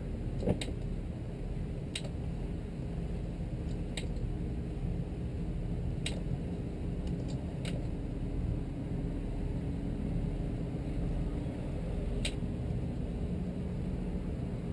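Steady low rumble of a Sea Ray 330 Sundancer's twin engines idling as the boat creeps ahead at dead slow, with a few faint steady tones in it. Short sharp clicks come every two seconds or so at first, then once more near the end.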